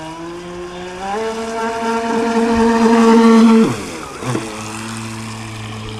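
Electric motor whine of a Thunder Tiger Atlantic Motor Yacht RC boat under way. The pitch steps up as the throttle is opened about a second in and holds high and loud. It drops suddenly a little before four seconds, with a brief blip of throttle just after, then settles to a lower steady whine.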